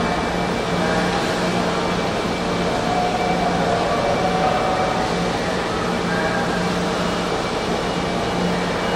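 Busy fish market hall ambience: a steady wash of machinery noise and the murmur of distant voices, with a low hum that comes and goes.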